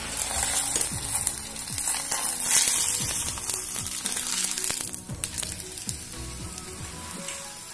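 Maida flatbread frying in hot oil in a frying pan, a steady sizzle that is loudest in the first few seconds and eases after about five seconds.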